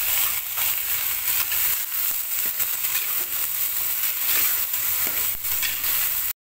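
Chopped garlic chives sizzling in hot oil in an aluminium wok, stirred with a spatula that scrapes along the pan now and then. The sound drops out briefly near the end.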